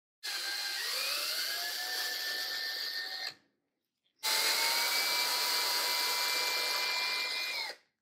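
Cordless drill motor spinning up and drilling into the end of a half-inch steel tube, in two runs of about three seconds each with a short pause between, the whine rising in pitch as the first run starts.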